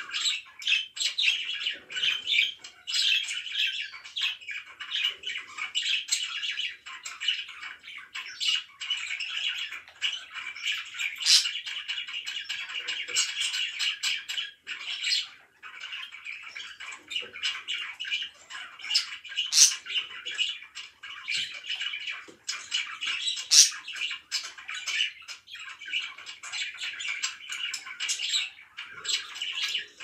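Several budgerigars chirping and chattering continuously, with a few sharp, louder calls standing out and a brief lull about halfway through.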